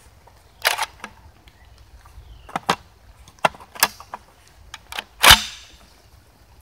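Sharp metallic clicks and clacks from handling an SDS Lynx 12 semi-automatic 12-gauge shotgun, then one loud shot about five seconds in that echoes briefly through the trees.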